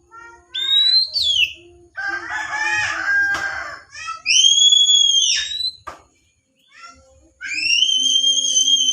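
Oriental magpie-robin (kacer) singing loudly: a run of clear, high whistled phrases about a second each, sliding up and arching down, with a scratchy chattering phrase in between.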